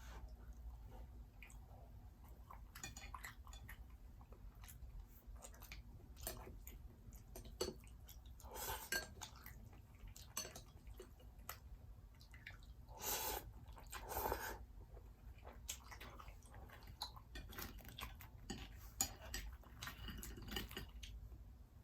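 Close-miked eating sounds: utensils clicking and scraping against a plate or food container, with soft chewing and a few louder handling noises.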